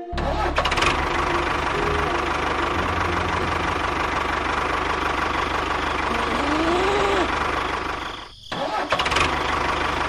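Tractor engine running steadily with an even low beat. It cuts out briefly about eight seconds in, then runs again.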